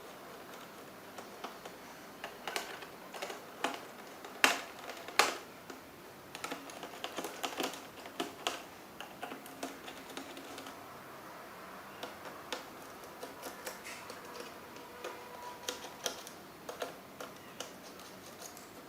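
Irregular small clicks and taps from laptop parts being handled and worked apart by hand, with two sharper clicks about four and five seconds in.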